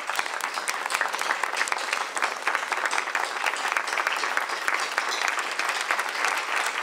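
A banquet audience giving a standing ovation, many hands clapping in a steady, dense applause.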